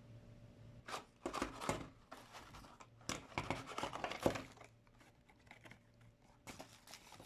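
Tripod stand's packaging being opened by hand: irregular rustling, crinkling and tearing, in a cluster from about a second in and again near the end.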